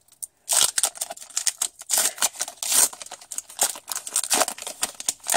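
Foil booster-pack wrapper being torn open and crinkled by hand: a dense run of sharp crinkles and rips starting about half a second in.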